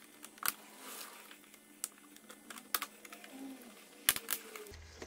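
Plastic clips on a SNOO bassinet's netting snapping into the platform connectors as they are pushed in: a handful of sharp clicks, irregularly spaced, with two close together near the end. Each click is the sign of a clip seating.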